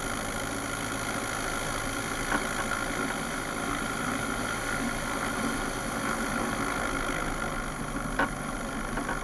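Cessna 172's piston engine running steadily at low taxi power, with a couple of brief faint knocks, one about two seconds in and one near the end.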